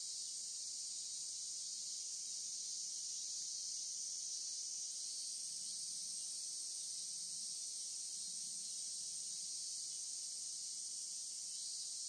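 Steady, high-pitched chorus of insects, unbroken and unchanging.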